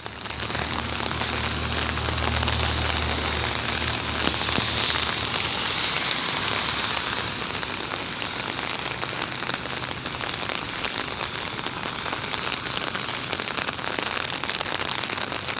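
Moderate rain falling steadily: a constant hiss with fine crackling patter of drops. A low steady hum sits under it for the first five seconds or so.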